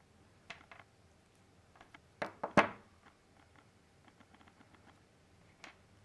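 Small metal parts of a vape mod's fire button clicking as they are worked apart with pliers and set down on a wooden table. There are a few light clicks, a cluster of sharp clicks about two and a half seconds in, and one more click near the end.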